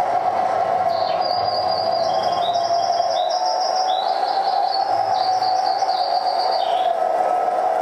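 Live experimental noise performance: a steady mid-pitched drone, with a run of high, bird-like chirping tones from about a second in until near the end.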